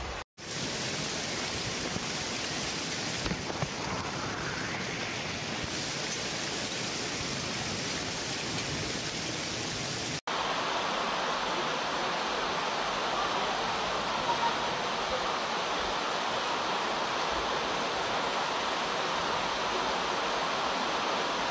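Floodwater rushing along a street, a steady full hiss with some low rumble. After a sudden cut about ten seconds in, heavy rain pours down on a paved street as an even, higher hiss.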